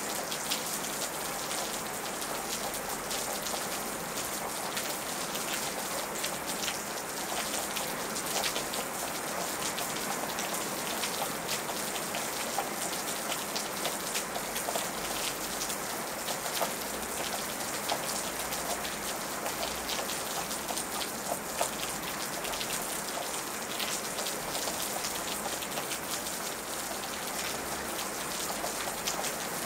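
Steady rain falling during a storm, an even hiss of rainfall with many separate drop hits ticking through it.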